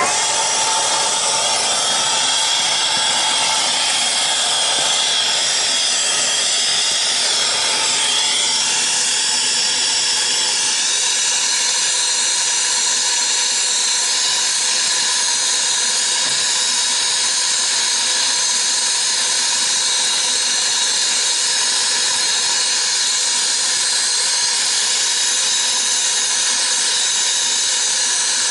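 Steady loud hiss of gas flowing.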